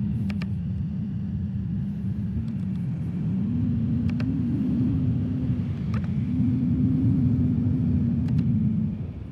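Motorcycle engine running steadily at cruising speed, its pitch rising a little about four seconds in and again around six seconds, then dropping away sharply near the end.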